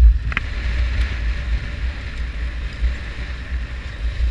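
Wind buffeting the microphone of a camera on a moving adventure motorcycle: a loud, uneven low rumble with riding noise beneath, and a short click about half a second in.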